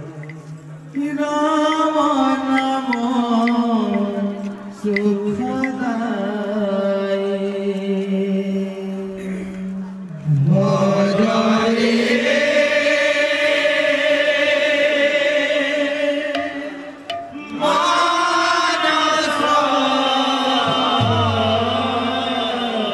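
Male voices singing a Hindu devotional kirtan chant in long, drawn-out phrases with held notes, broken by short pauses between lines.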